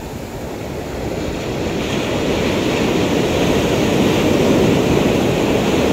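Surf: a wave surging in and breaking at the shoreline, a rushing noise that swells louder about two seconds in and stays loud.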